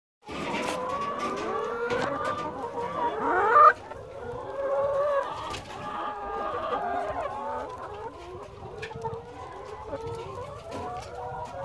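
A large flock of free-range egg-laying hens clucking and calling over one another. About three and a half seconds in, a loud rising call is the loudest sound and cuts off suddenly.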